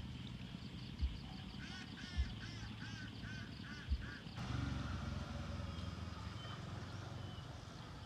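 A quick run of about eight short, repeated animal calls, about three a second, then a low engine hum comes in about halfway through. A few dull thumps are heard in the first half.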